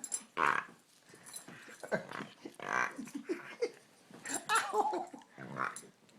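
A dog making odd frog-like croaking noises in a string of about six short bursts.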